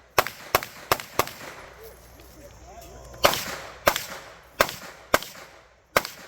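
Gunshots from a competition shooter's run: four quick shots, a pause of about two seconds, then five more about half a second apart.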